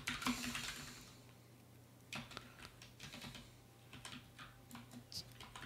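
Keystrokes on a computer keyboard, a few faint clicks at an uneven, unhurried pace beginning about two seconds in, over a faint low hum.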